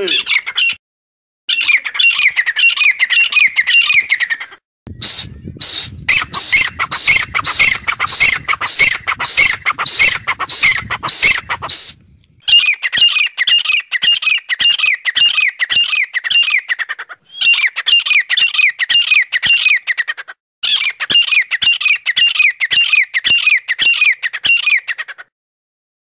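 Francolin calling: loud, rapid series of short, high notes that slur downward, about four or five a second, in bouts broken by brief pauses. A rougher, noisier stretch runs from about five to twelve seconds in, and the calling stops about a second before the end.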